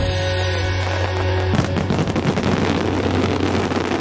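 Music with steady low tones, cut into about a second and a half in by a dense, continuous crackling of fireworks.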